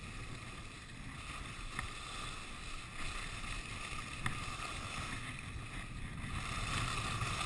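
Wind rushing over the microphone of a body-worn action camera while skiing downhill, with the hiss of skis sliding on groomed snow; it grows louder near the end as speed picks up.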